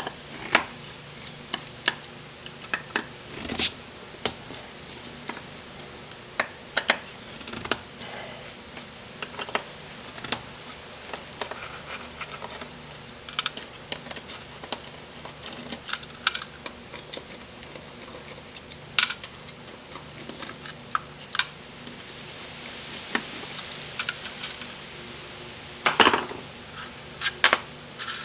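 Irregular metallic clicks and clinks of hand tools, screws and small parts as the plate is unbolted and lifted off a Chrysler 727 transmission's aluminum valve body.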